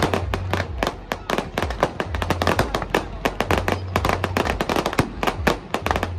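Fireworks display going off in rapid succession: a dense, continuous crackle of sharp bangs and pops, several a second, over a low rumble.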